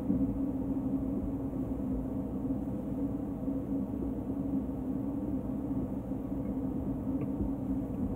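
Steady low machine hum of room equipment, with several held tones that do not change.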